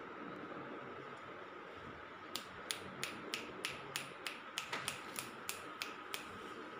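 A quick run of about fourteen sharp, evenly spaced clicks, roughly three a second, starting a little after two seconds in and stopping about six seconds in, over a faint steady hiss.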